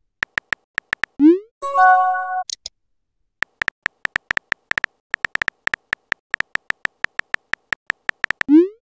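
Phone keyboard tap clicks from typing in a chat app, in quick runs. About a second in comes a rising pop and a short chime as a message is sent. Then the typing clicks go on for several seconds, and another rising pop comes near the end.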